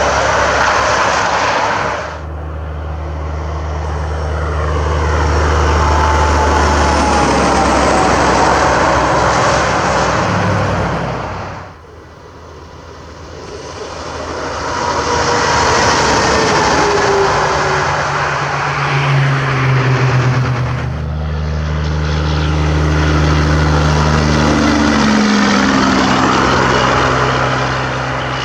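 Diesel semi-trucks driving past one after another: steady low engine drone with tyre noise, and a whine that falls in pitch as each truck goes by. The sound breaks off sharply three times between passes.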